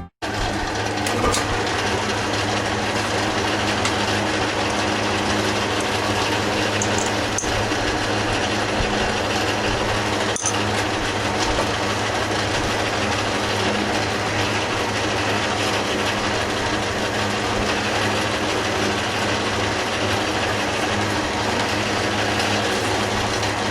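Metal lathe running steadily: a constant motor hum with an even mechanical whirr from the drive.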